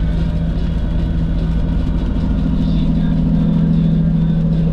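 Steady drone of a car travelling on the highway, with engine and tyre noise and a constant low hum.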